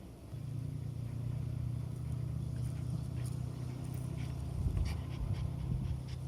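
Jack Russell terrier panting close to the microphone, steady at first and more uneven in the last couple of seconds.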